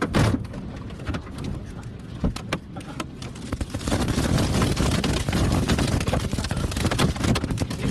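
Storm wind buffeting the microphone, with a rushing noise and many scattered knocks and clatters; it gets louder from about four seconds in.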